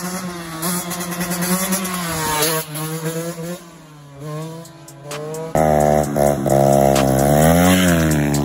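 Motorcycle engine running at steady revs through a wheelie, its pitch climbing at times. About five and a half seconds in the sound changes suddenly to a small pit bike's engine revving, rising and then falling in pitch near the end.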